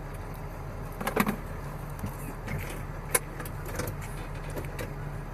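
Vehicle engine idling with a steady low hum, with a few sharp clicks and knocks about a second in and again about three seconds in.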